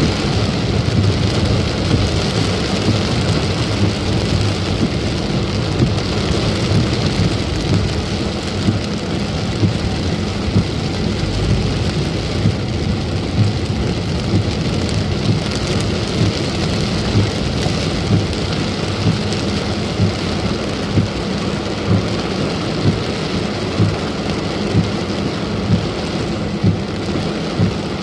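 Heavy rain drumming on a moving car's roof and windscreen, heard from inside the cabin over the low rumble of the car on a wet road. Regular short knocks come about once a second through the second half.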